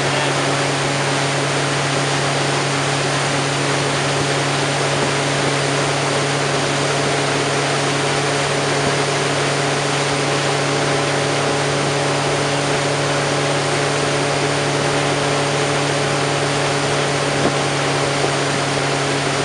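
Tow boat's engine running at a steady cruising speed, an unchanging drone over a constant rushing noise.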